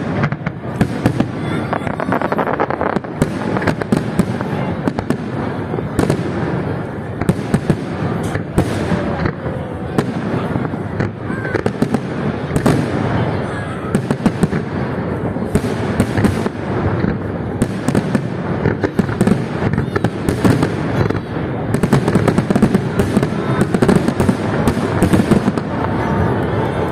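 Fireworks display: a dense run of bangs and crackles going off in quick, irregular succession, over the chatter of a crowd.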